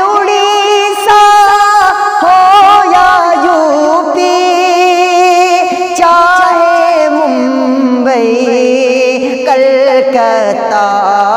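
A man singing a naat, a devotional Urdu poem in praise, drawing out long, wavering notes with a quick vibrato.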